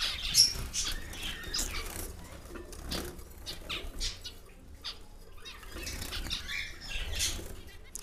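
A colony of jumbo zebra finches in an aviary: scattered short, sharp calls and flutters of wings.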